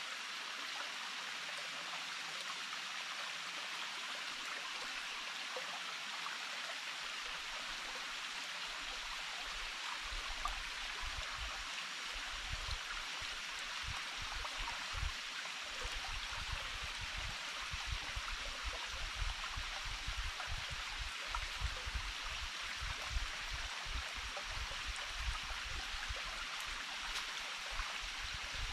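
A small forest stream running steadily. From about ten seconds in, irregular low thumps come through under the water sound.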